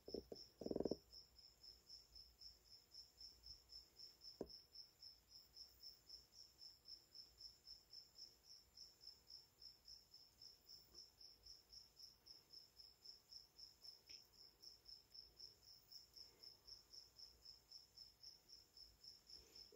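Faint, steady high-pitched insect chirping, about three chirps a second, with one short click about four seconds in.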